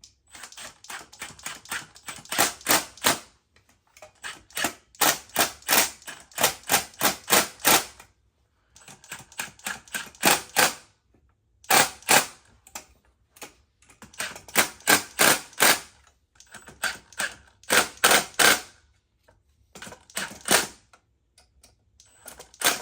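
Quick, sharp taps in repeated bursts of a second or two, several strokes a second, each burst building to its loudest strokes near its end, like a tool being struck or driven in short runs while fitting conduit to boxes.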